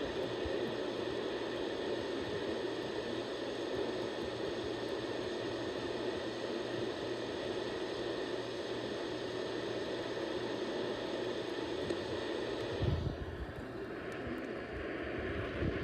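Steady rushing static and hiss of an AM radio receiver tuned to a weak station, with a faint hum under it. The noise drops slightly near the end and a few low thumps follow.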